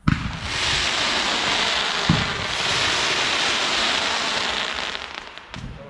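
Fireworks display: low booms of shells bursting, one at the start and one about two seconds in, under a dense hissing crackle that fades away, with a few separate sharp pops near the end.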